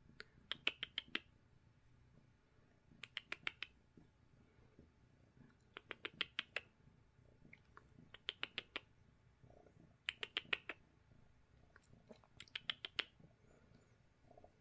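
Domestic cat making short, high chirping noises in quick runs of five or six, about six runs at roughly two-second intervals, while being scratched on the chin and head.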